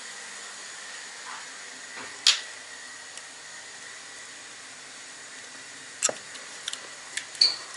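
Hand soldering with an electric soldering iron at a table: a steady faint hiss, one short hiss about two seconds in, and a few light clicks and taps of tools near the end.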